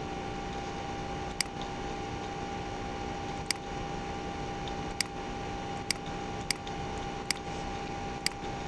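Computer mouse clicking seven times at uneven intervals, over a steady background hum with a thin constant tone.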